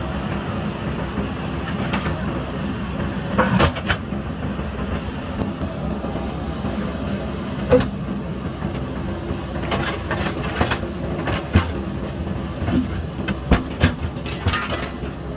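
JCB backhoe loader's diesel engine running steadily at work, with scattered sharp knocks and clanks of the bucket striking material, several of them in the second half.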